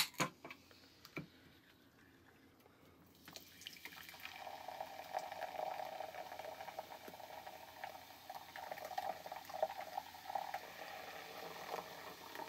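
Sprite poured from an aluminium can into a glass measuring cup: a steady stream of fizzy soda splashing in, starting about three seconds in and running on to the end, with a few light clicks from handling the can before the pour starts.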